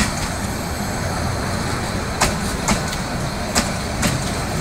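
Passenger train coaches rolling past close by: a steady low rumble of steel wheels on rail, with sharp clicks coming in pairs about half a second apart as each bogie's wheelsets cross a rail joint, twice in the second half.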